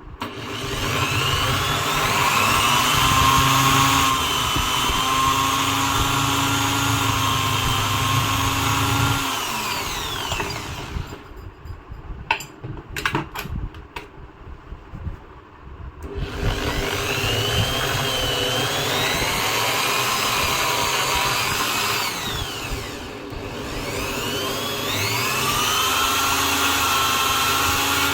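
Electric drill motor spinning up and running steadily, then winding down about ten seconds in. A few knocks follow in the pause before it starts again and runs on, briefly slowing near the end.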